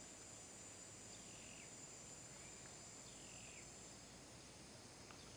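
Near silence with faint forest ambience: a steady high insect drone, with a short falling chirp repeating every second or two.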